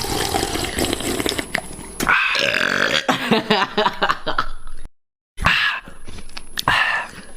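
A young man belching: a rough belch, then a long drawn-out belch with a clear pitch lasting nearly three seconds. It cuts off abruptly, and after a brief gap more belching follows.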